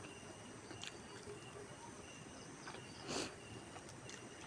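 Faint background ambience: thin, steady high-pitched tones with scattered small clicks, and a brief soft rustling noise about three seconds in.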